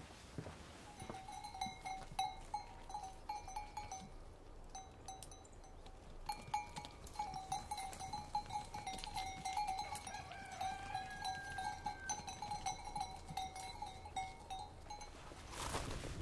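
Bells hung on grazing sheep clanking and jingling irregularly as the animals move, with a short pause a few seconds in.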